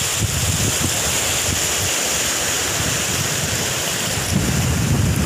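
Small waves breaking and washing up on a sandy beach, a steady hiss of surf, with wind buffeting the microphone in an uneven low rumble.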